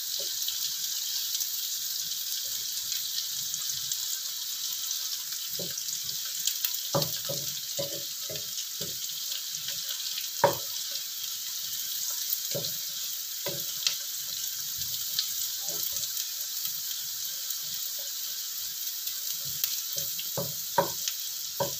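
Oil sizzling steadily in a wok as cubes of tempe, eggplant and small anchovies fry, with scattered knocks and scrapes of a wooden spatula against the pan as they are stirred; the sharpest knock comes about ten seconds in.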